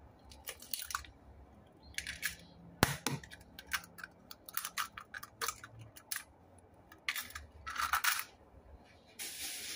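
Two eggs cracked open by hand over a plastic tub of crumbled tofu: a scatter of sharp eggshell cracks and clicks, the loudest about three seconds in, as the shells are broken and pulled apart and the eggs drop in. A steady rushing noise starts near the end.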